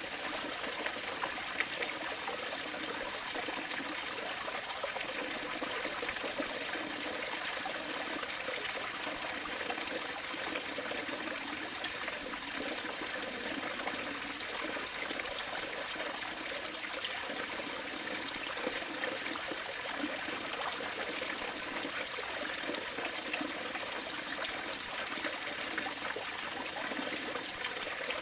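Running water trickling and flowing steadily, an even splashing rush with no breaks.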